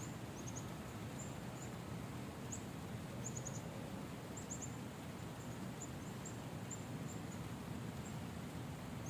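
Steady rain falling, an even hiss. Thin, very high chirps sound in twos and threes throughout.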